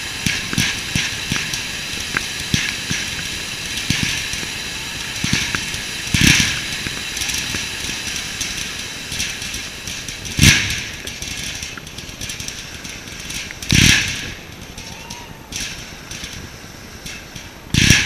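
Low-noise firework fountain hissing and crackling as it sprays sparks, with comets from a roman candle barrage firing over it: four louder launch thumps about 6, 10, 14 and 18 seconds in.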